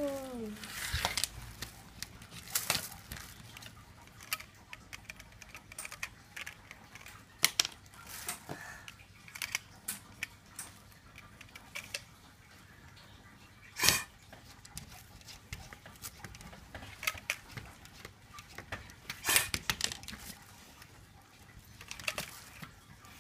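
Scattered sharp taps and knocks at irregular intervals, a handful louder than the rest.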